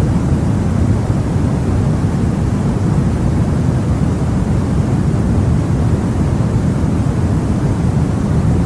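Steady, unchanging generated noise, deep and weighted heavily toward the low end, like brown noise more than bright white hiss.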